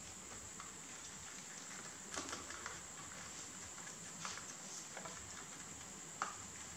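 Two rabbits munching fresh basil leaves: scattered small crunches and leaf rustles over a steady hiss, with the sharpest snap about six seconds in.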